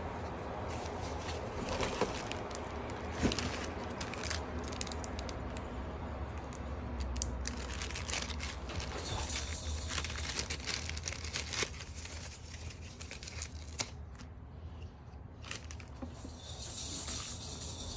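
Clear plastic parts bag and tissue-paper packing crinkling and rustling as they are handled, with scattered small clicks and taps, over a low steady hum.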